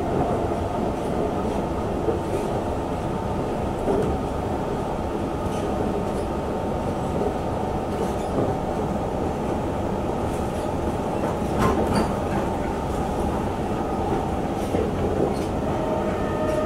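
Singapore MRT train running at speed, heard from inside the carriage: a steady rumble with a held hum, and light clicks from the wheels over the track every second or two.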